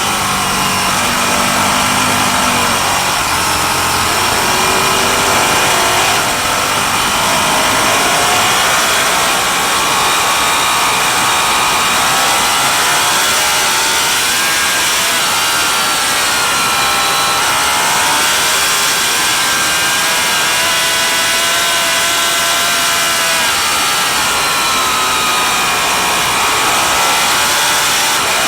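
Vintage racing motorcycle engine at high revs, its pitch rising and falling every few seconds as it accelerates, shifts and slows through the course, over a steady rushing noise.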